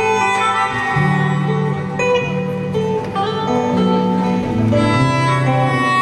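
Live instrumental music with no singing: long held notes over a low line that moves to a new pitch about once a second.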